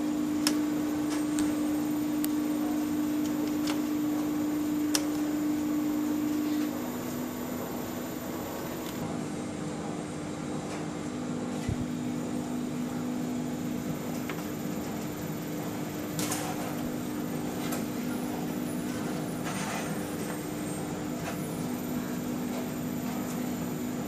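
Steady electrical machine hum from a large washing machine's control cabinet with its drive inverter running, one strong steady tone in it; the hum drops in level about seven seconds in, with a few faint clicks.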